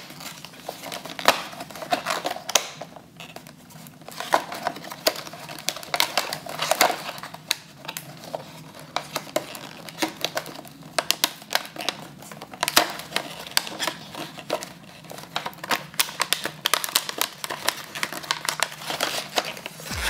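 Hands opening a cardboard box of basketball trading cards: an irregular run of small clicks, taps and light crinkles as the box and the stack of cards are handled and pulled apart.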